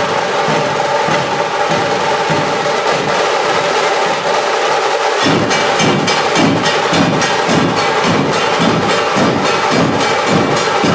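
A dhol tasha troupe playing: large barrel dhol drums beating a driving rhythm under the sharp, rapid strokes of tasha drums. About five seconds in, the pattern changes to more distinct, evenly spaced heavy beats with crisp stick strokes on top.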